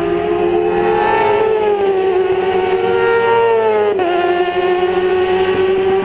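Sportbike engine running hard at high revs. Its pitch rises a little, falls away over a couple of seconds, breaks briefly about four seconds in, then holds steady.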